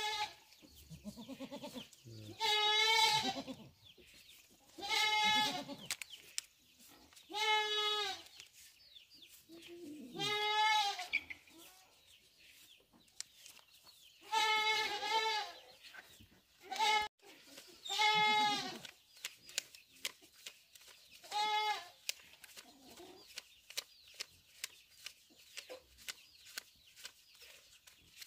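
A goat bleating over and over, each call a short, quavering bleat, repeated every few seconds with a longer pause about halfway through.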